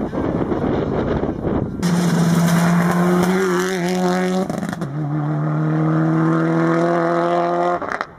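Subaru Impreza rally car's turbocharged flat-four engine driven hard on a tarmac stage, first heard from further off, then suddenly loud and close. The engine note holds fairly steady, breaks briefly about halfway through and comes back slightly lower in pitch, then cuts off abruptly near the end.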